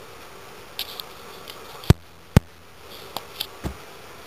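A handful of short, sharp clicks and knocks over a quiet room background, the two loudest close together about halfway through.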